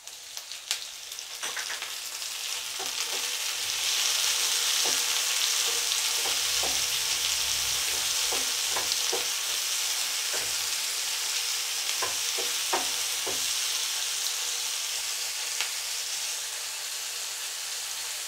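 Chopped tomatoes sizzling in hot oil with onions and green chillies in a frying pan, the sizzle building over the first few seconds after they go in and then holding steady. A wooden spatula stirring them adds scattered taps and scrapes against the pan.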